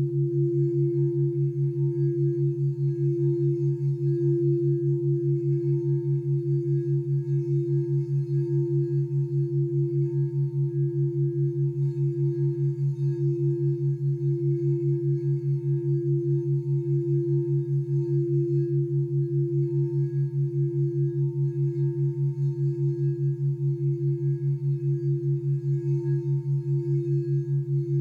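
White crystal singing bowl sung by rubbing a mallet around its rim, giving a steady, sustained tone with a deeper hum under it that pulses rapidly and evenly.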